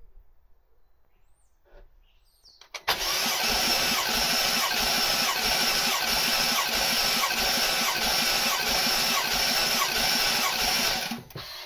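BMW F10 M5's twin-turbo V8 cranking on its starter motor with the spark plugs out and the fuel pump fuse pulled, for a compression test on cylinder 2, which reads 190 psi. The cranking starts suddenly about three seconds in, runs steadily with an even rhythmic pulse, and stops just before the end.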